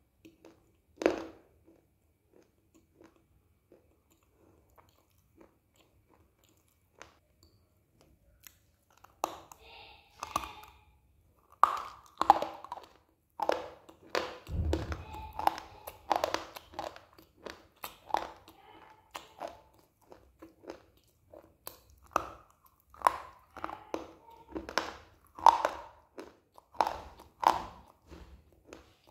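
A person biting and chewing a slate pencil: crisp, dry crunches with chewing between them. There is one sharp bite about a second in, then a quiet stretch, then dense crunching from about nine seconds on.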